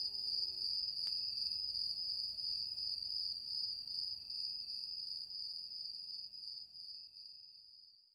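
Crickets chirping in a steady high trill as night ambience, fading away toward the end. The last held notes of the music die out under it less than a second in.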